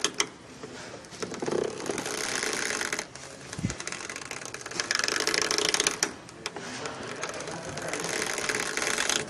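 Creaking and rubbing from a 2017 Hyundai Accent's front coil spring's rubber insulator, rasping against the spring as the strut turns with the steering. It comes in several long stretches with short pauses. The dry rubber mount is the cause of the turning noise, which grease on its nubs cures.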